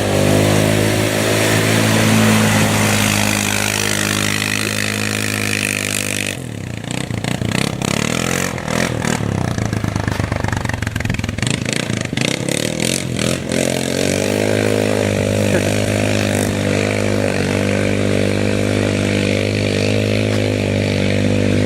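Quad (ATV) engine idling steadily close by. For several seconds in the middle it runs rougher and more unevenly, with clattering clicks, then settles back to a steady idle.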